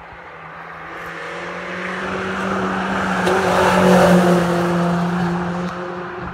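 Peugeot 206 GTI 180's two-litre four-cylinder engine held at steady high revs as the car approaches and passes close by. It is loudest about four seconds in, then fades as it drives away.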